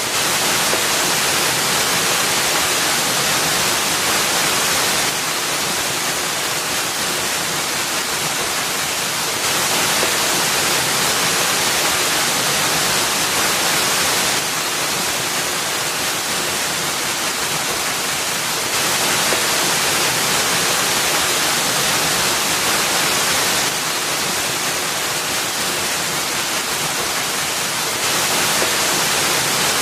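Steady rushing hiss of a waterfall falling onto rock and into a pool, with no lulls or pauses. Its loudness steps slightly up and down every four to five seconds.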